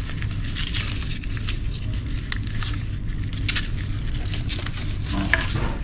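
Drone shoulder bag being handled: scattered short rustles and clicks from the bag and its strap, over a steady low hum.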